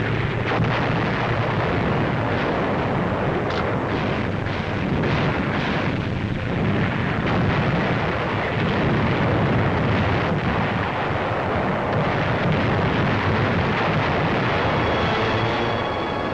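Battle sound on a WWII-era film soundtrack: a continuous rumble of artillery fire and explosions, with a few sharp blasts standing out. Music begins to come in near the end.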